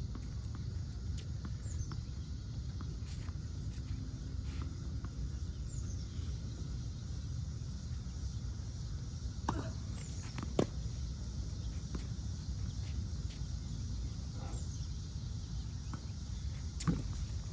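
Tennis ball struck and bouncing on a hard court: a few sharp pops, two close together a little past halfway and one near the end, over a steady low rumble.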